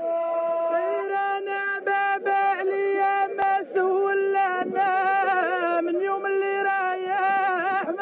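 Background music: an ornamented melody of held, wavering notes over a steady low note, with a short click about three and a half seconds in.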